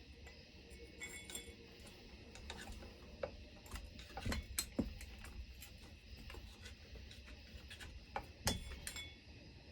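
Faint scattered clicks and a few light metallic clinks of small hand tools and bits being handled at a workbench, with a brief ringing clink about a second in and another near the end.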